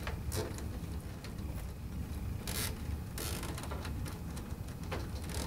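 A 12-inch nylon zip tie being pulled tight around bundled network cables, its ratchet zipping in several short strokes, with cables rubbing and hands handling them.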